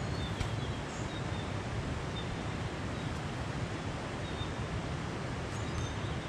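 Steady outdoor rushing noise with a low rumble underneath, and a few faint short high chirps now and then.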